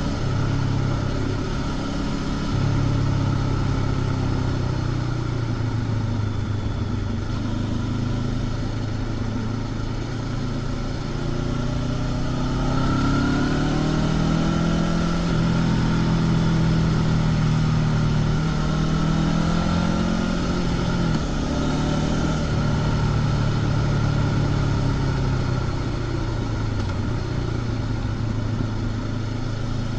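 Honda CB500X's parallel-twin engine running through its stock exhaust, heard from the rider's seat under changing throttle. The engine note steps up and down, rises steadily through the middle, then drops about two-thirds of the way in, over a constant rush of wind and road noise.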